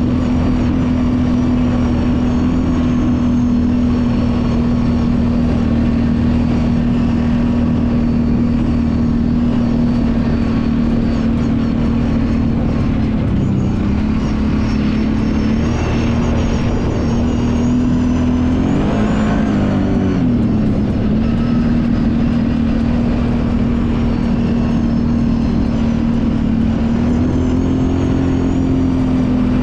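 Kawasaki Brute Force 750 ATV's V-twin engine running steadily under way on a trail. Its pitch dips briefly about 13 seconds in, falls and climbs back around 19 to 20 seconds, and rises a little near the end.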